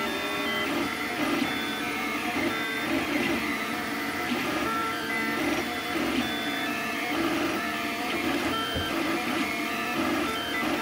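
3D printer running mid-print, its stepper motors whining in short, steady tones that keep jumping to new pitches as the print head moves.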